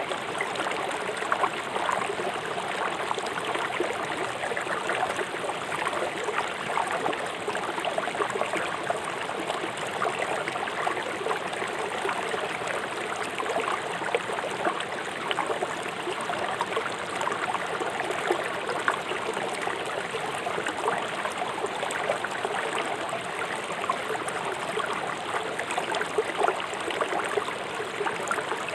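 A swift river rushing and splashing over rocks: a steady, even rush of water with constant small splashes and gurgles.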